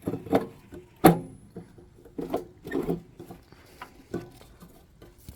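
Irregular handling clicks and knocks as a 35 W low-pressure sodium bulb is fitted into an old streetlight fixture, the loudest knock about a second in.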